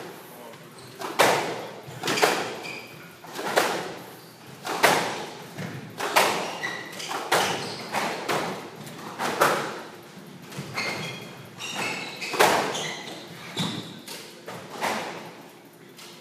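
A squash rally: the ball hit by racket and striking the court walls about once a second, each hit echoing in the court, with short high squeaks of court shoes on the wooden floor between hits. The hits stop about a second before the end.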